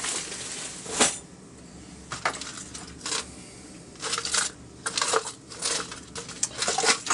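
Small metal hand tools clinking and rattling against each other while being rummaged through in a search for an Allen key: one sharp click about a second in, then scattered clicks that grow busier in the second half.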